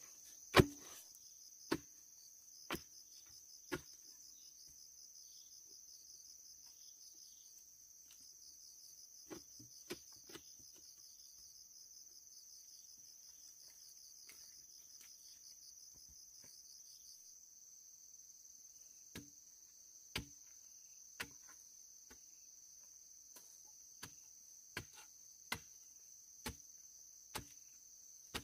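Insects trilling in a steady high drone, with a pulsing layer that stops a little past halfway. Sharp knocks come in runs at about one a second and stand out above the drone.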